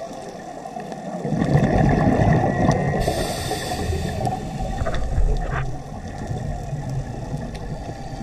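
A scuba diver's exhaled bubbles from the regulator, heard through an underwater camera as a gurgling rumble that starts about a second in and eases off near the six-second mark, with a brief hiss partway through.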